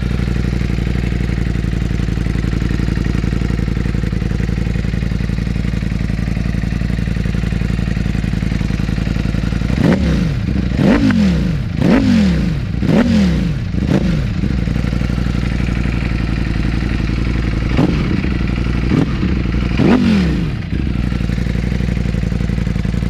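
Ducati Panigale V4 V4 engine breathing through a full Akrapovic exhaust system, idling steadily, then blipped on the throttle. About ten seconds in comes a run of about five quick revs, roughly a second apart, each rising sharply and falling back to idle. Three more blips follow near the end before it settles back to idle.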